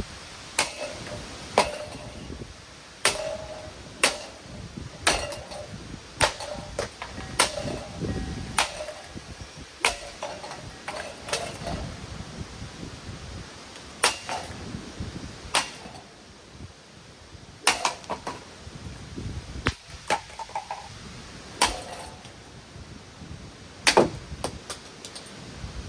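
Repeated heavy blows striking a ceiling fan's metal housing, roughly one a second with irregular pauses, several of them followed by a brief metallic ring.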